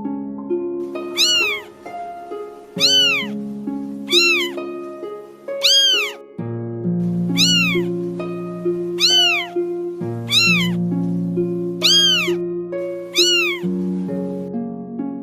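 Domestic cat meowing over and over, nine short meows that each rise then fall in pitch, about one every one and a half seconds.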